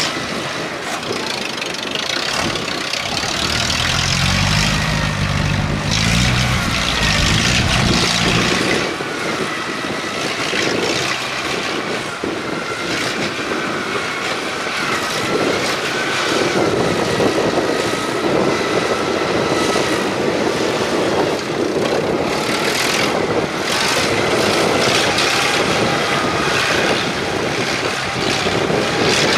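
Kubota DC70 rice combine harvester running steadily, its engine and threshing machinery making a dense noise with a high whine that wavers in pitch. A deeper engine note rises for a few seconds near the start, then fades.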